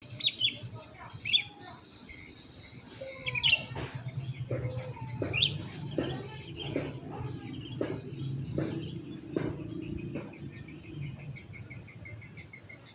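A songbird chirping in short, high calls, loudest in the first few seconds. A run of sharp clicks, about one a second, falls through the middle, over a low steady hum.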